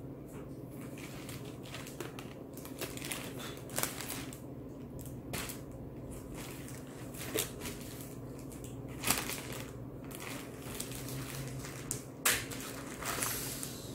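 Rustling, with scattered light knocks and clicks at irregular intervals, of objects being handled and moved about. A low steady hum lies under it.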